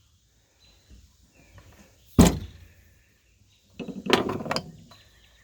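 Handling of a chainsaw and tools on a truck tailgate: one sharp knock about two seconds in, then a cluster of clattering knocks about four seconds in.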